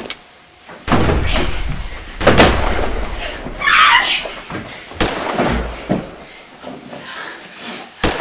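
Pillow fight: cushions thudding and swishing, with feet scuffling on a wooden floor. There are sharp knocks about five and eight seconds in, and a brief burst of laughter near the middle.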